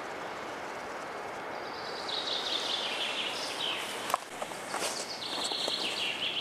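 A songbird sings over a steady outdoor background hiss, two phrases starting about two seconds in, each a quick run of notes falling in pitch. There is a sharp knock about four seconds in, and light rustling steps on the forest floor near the end.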